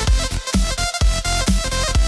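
Electronic dance music with a steady heavy beat, about two beats a second, under sustained synth notes.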